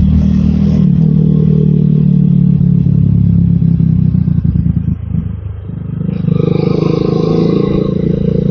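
Motorcycle engine running steadily while riding, with wind and road noise. The engine eases off briefly about five seconds in, then a louder, wider rush of sound comes in about a second later.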